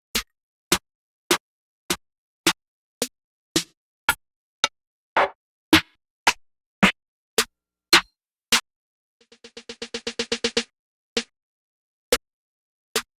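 Trap drum-kit one-shot samples played one after another: short hits about every half second, each separated by silence. About nine seconds in, a fast roll of pitched hits swells in loudness for about a second and a half, then single hits resume.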